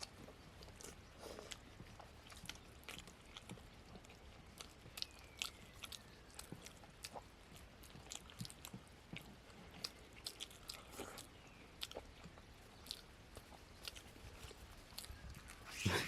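Close-up eating: people chewing and biting into poori with mutton curry, as a run of short, irregular wet clicks and smacks, with one louder burst near the end.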